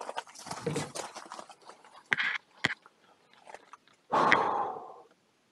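Footsteps crunching and scuffing on gravel and brush, then about four seconds in a single sharp shot from a Ruger 10/22 rimfire rifle, the loudest sound, dying away over nearly a second.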